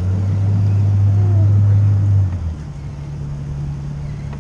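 Yamaha 190 FSH jet boat's engine running at low speed, a steady low hum. A little past two seconds in it drops in level and steps up slightly in pitch, as with a throttle or gear change while the boat is being positioned.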